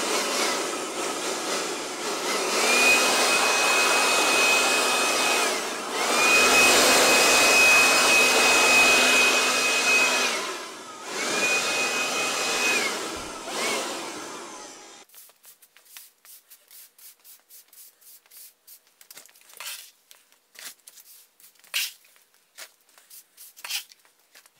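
KIMO 20V cordless handheld blower running on its variable trigger: a steady rush of air with a high motor whine that climbs in and holds three times, as the trigger is squeezed and eased. It cuts off about fifteen seconds in, leaving faint scratchy strokes of a push broom on a concrete floor.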